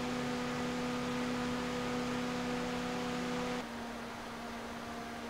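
Two 120 mm PC case fans, the Corsair RS120 Max and a comparison fan, running one after the other at 100% speed and recorded with 10 dB of added gain. The first gives a steady rush of air with a strong hum and overtones. About three and a half seconds in, it gives way to a quieter fan with a lower, weaker hum.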